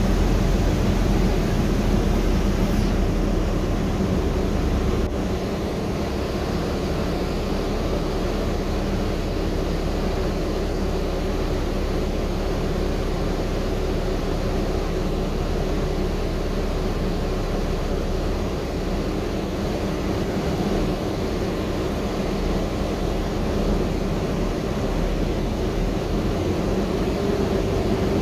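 Cabin noise inside a Gillig trolley-replica 35-foot hybrid bus: a steady low drone of the drivetrain and road, easing a little about five seconds in.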